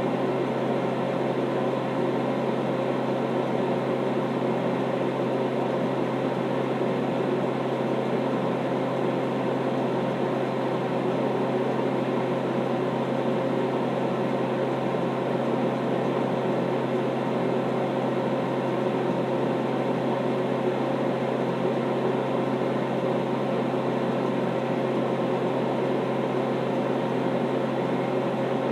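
Steady whirring hum of a running fan-driven appliance, unchanging throughout, with a low steady drone under it.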